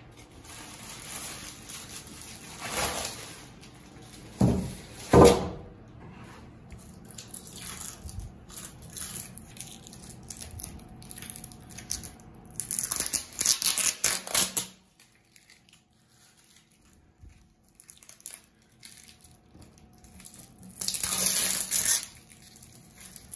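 Black plastic bin bags and clear plastic film being pulled and crinkled off a glued plywood scarf joint, in several spells of rustling. Two heavy thumps come about four and five seconds in.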